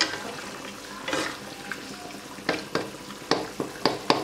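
Beef and masala frying in a karahi with a steady sizzle, while a stirring utensil knocks and scrapes against the pan in sharp, irregular clicks, more of them in the second half.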